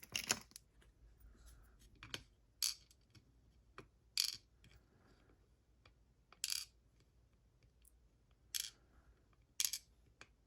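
Light metallic clinks, about eight of them at irregular gaps of a second or two: small lock pins being handled and set down on a hard surface as a gutted pin-tumbler lock is taken apart.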